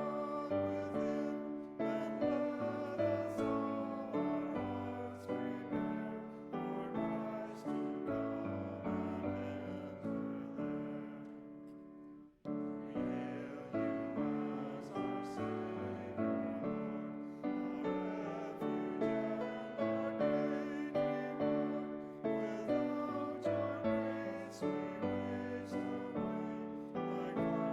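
Piano playing slow chords, each note fading after it is struck, with a brief break about twelve seconds in where the sound nearly stops.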